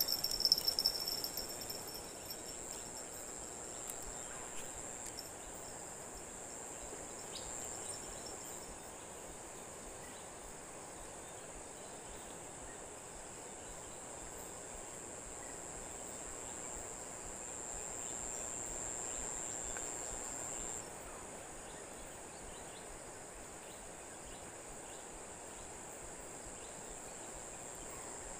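Insects drone in a steady high-pitched whine over the even rush of a swollen, fast-flowing river. One layer of the insect drone cuts off about two-thirds of the way through.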